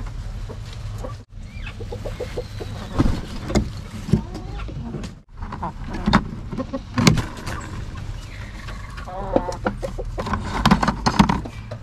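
Hens clucking while eggs are handled and set into a wicker basket, with scattered sharp knocks and clicks from the shells and handling.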